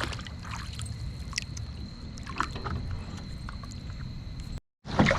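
Small boat on the water: a steady low rumble, like wind on the microphone, with scattered light knocks and small splashes, and a faint steady high tone. The sound drops out for a moment near the end.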